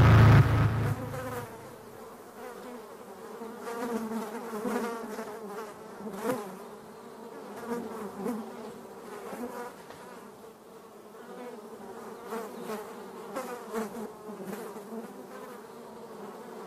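Dark ambient sound: a loud low rumble dies away in the first second or so, leaving a quieter insect-like buzzing drone that wavers in pitch, with scattered faint clicks.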